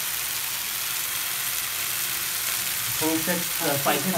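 Chopped cabbage, capsicum, onion and tomato sizzling steadily in a hot non-stick frying pan.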